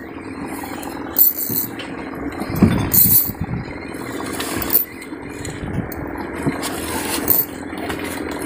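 A boat engine running steadily at idle while a spinning reel is wound in against a fish, with a few short clicks or scrapes.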